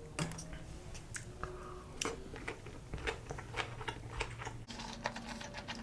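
A person chewing food close to the microphone: a quick, irregular run of short, wet mouth clicks.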